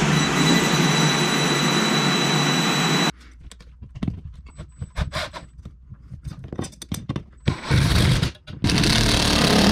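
Cordless impact driver driving screws through perforated steel angle brackets into the ceiling. It runs for about three seconds, stops, and after a few seconds of light clicks and scrapes from handling the metal it runs again twice near the end.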